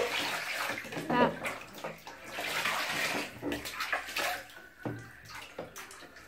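Water poured from a plastic dipper over a baby sitting in a plastic baby bathtub, splashing and sloshing in several uneven pours.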